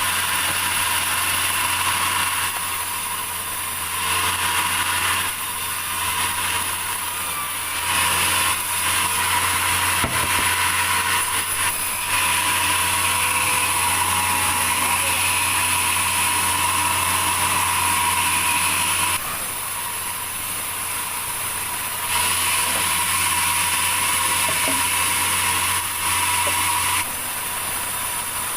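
Sawmill saw running and cutting through a log, a steady machine hum under a loud, hissing cutting noise that swells for long stretches and eases off between passes.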